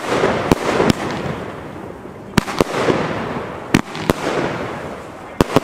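Tropic Hex (Hexagon TB111) consumer firework battery firing: about nine sharp bangs of shots launching and bursting, in uneven clusters, with a steady hiss between them.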